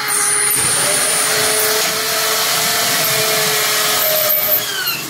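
Handheld electric drill running steadily at full speed, drilling into the galvanized metal furring of a suspended ceiling frame. It winds down with a falling pitch near the end.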